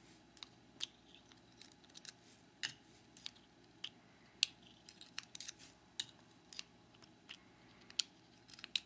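Light, irregular clicks and taps of small metal lock parts, the pins and springs of a gutted Trioving lock, being handled and set down one by one.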